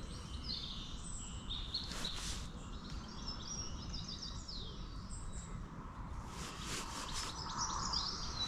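Small songbirds chirping and trilling repeatedly in short high phrases, over a steady low background rumble, with a couple of brief rustles.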